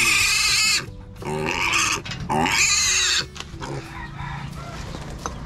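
Piglet squealing in three long, shrill shrieks while held upside down by its hind legs, the cry of a restrained, distressed young pig. It goes much quieter about three seconds in.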